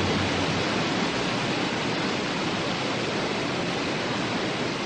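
A waterfall rushing steadily, a continuous even wash of water noise.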